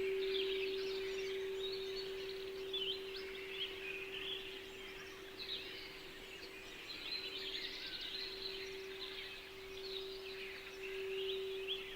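A singing bowl rings with one steady, pure tone, struck just before and slowly fading, with a wavering pulse in its second half. Over it, small songbirds chirp and twitter at a high pitch.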